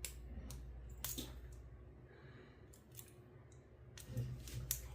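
Lock picks working inside a Stanley laminated shrouded padlock during single-pin picking: faint, scattered small metallic clicks, a few more together near the end, as the picker searches for the last pin.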